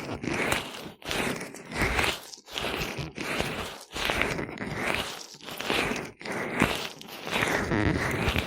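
Gloved hands massaging oil over a microphone's ear, wet slick rubbing in slow repeated strokes, about one a second.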